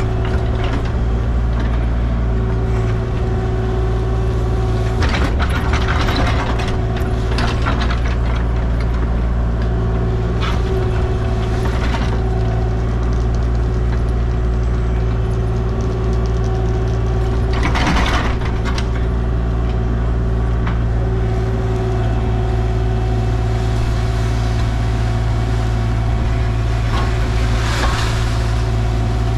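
Engine of earth-moving equipment running steadily while the excavated tank hole is backfilled, with a few louder scraping or clanking bursts from the work: several about five to seven seconds in, a strong one about eighteen seconds in, and another near the end.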